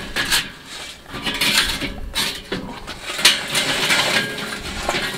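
Burning coconut charcoal briquettes being tipped from a metal chimney starter into a charcoal basket. Hard lumps clatter and scrape against the metal and each other in several separate pours.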